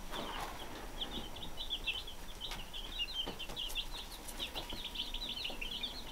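A brooder full of young pullet chicks, about fifty of them, peeping constantly, with many short, high cheeps overlapping.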